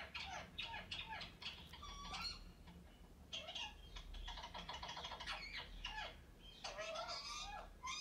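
A songbird singing: a rapid, varied warble of high chirps and trills in three phrases with short breaks between them.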